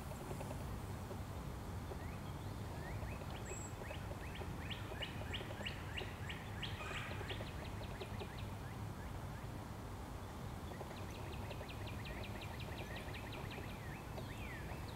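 Wild songbirds singing: a run of quick down-slurred notes that speeds up into a trill, then a second trill of rapid even notes, over a steady low rumble.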